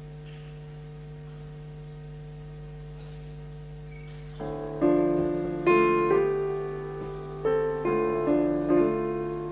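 Grand piano played solo in a slow jazz ballad: a held chord rings for the first four seconds or so, then a series of chords is struck, each ringing out and fading. A steady low hum lies under the piano.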